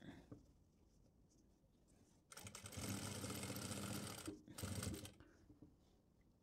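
Industrial single-needle lockstitch sewing machine stitching through cotton fabric in two short runs. The first run lasts about two seconds and starts about two seconds in; a brief half-second burst follows.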